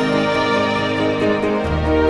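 Background music of held, sustained notes in harmony, with a deep bass note coming in near the end.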